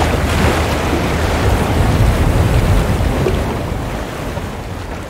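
Steady rushing noise of sea surf and wind, heaviest in the low rumble, fading out over the last two seconds.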